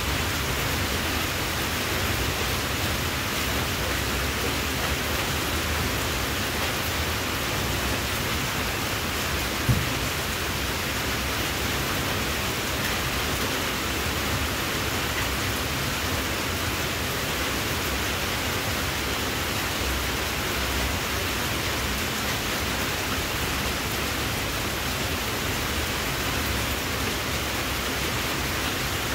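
Steady, even hiss with no clear pattern, with one short knock about ten seconds in.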